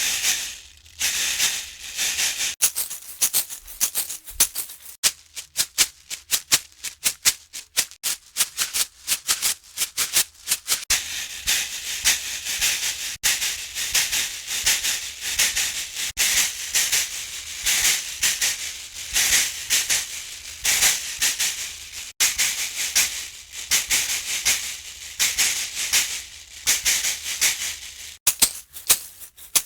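Caxixi, the woven basket rattle that goes with the berimbau, shaken in quick rhythmic strokes with brief pauses now and then; little of the string's tone comes through.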